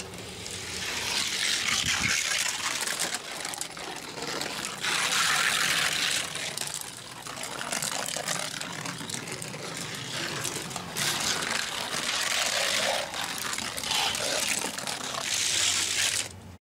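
A Hot Wheels Jack Hammer diecast car rolling down a long plastic gravity track, its wheels giving a continuous rushing hum. The hum swells and fades several times as the car runs, with a few sharp clicks along the way.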